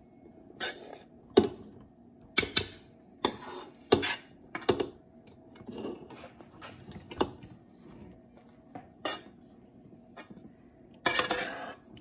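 Metal serving spoon clinking and scraping against a skillet and the steel inner pot of an Instant Pot as ground chicken and rice is spooned from one to the other. Sharp clinks come about a second apart, then a longer run of scraping near the end.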